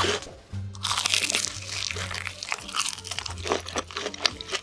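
Crunchy food being bitten and chewed in a rapid run of sharp crunches, over background music with steady low bass notes.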